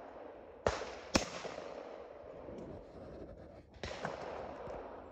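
Shotgun reports on a clay range, each followed by a long echoing tail: two sharp shots about half a second apart near the one-second mark, the second the louder, and a third about four seconds in.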